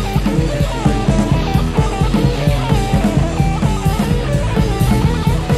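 Instrumental rock band passage without vocals: a melodic guitar line over bass guitar and a drum kit keeping a steady beat.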